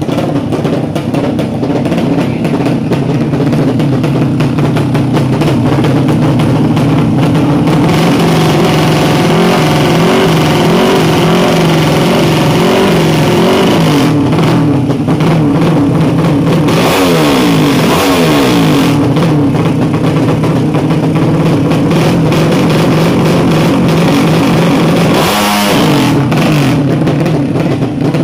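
Small-displacement (200 cc) drag-race motorcycle engines running loud at the start line, held at high revs. The pitch falls away once in the middle.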